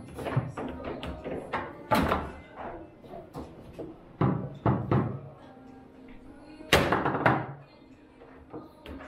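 Table football game: the hard ball cracking off the plastic players and table walls, with rods and bumpers clacking in quick irregular hits. Loud hits come about two seconds in, twice around four to five seconds, and the loudest pair near seven seconds. Background music plays under the hits.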